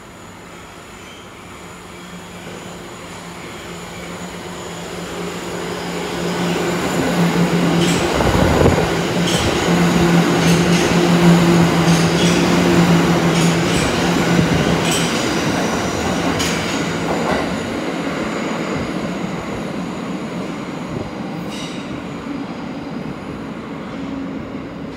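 Tokyo Metro 1000-series subway train passing through the station at speed without stopping. Its rumble builds as it approaches, peaks with a steady low hum and a series of sharp clicks while the cars go by, then fades into the tunnel.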